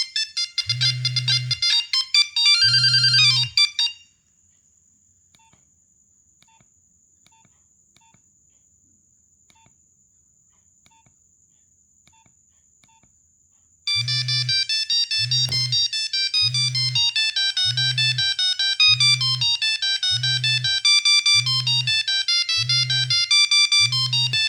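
Nokia 1100 monophonic ringtones: a fast beeping tune that stops about four seconds in, near silence for about ten seconds, then another tune of rapid beeping notes in quick runs from about fourteen seconds, with a low pulse about once a second underneath.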